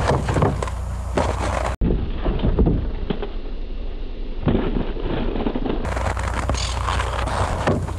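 Inline skate wheels rolling and clattering over concrete pavement, with irregular knocks from jumps and landings, over a steady low rumble of camcorder wind noise. The sound cuts out for an instant about two seconds in.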